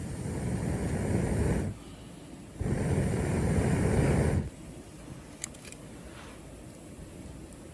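Two long blows of air onto a campfire, each lasting about two seconds with a short gap between them, followed by a couple of faint sharp pops from the fire.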